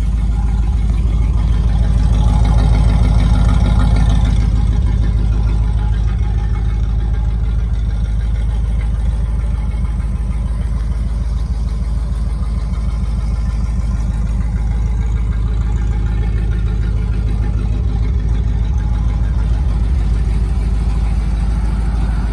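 1975 Dodge van's engine idling steadily, swelling slightly for a couple of seconds early in the walk-around.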